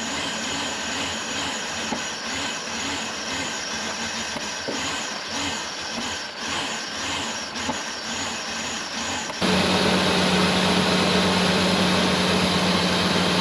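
1996 Ford Ranger's 3.0 L V6 idling unevenly with a misfire. About nine and a half seconds in the sound jumps abruptly to a louder, steadier running note with a strong low hum.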